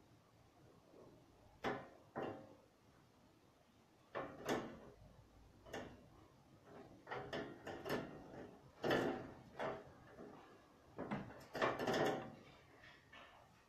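A series of irregular knocks and clunks from things being handled in a small room, a dozen or so, coming closer together and louder in the second half.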